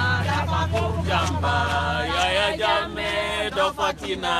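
Voices of marchers singing a chant together, long held notes gliding up and down. A low hum sits under the singing and fades out about two seconds in.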